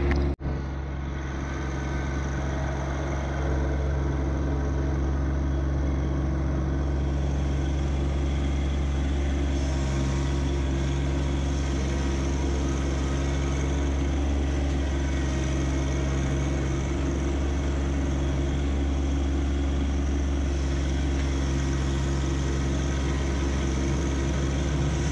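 John Deere 1025R subcompact tractor's three-cylinder diesel engine running steadily, with a brief break in the sound just after the start.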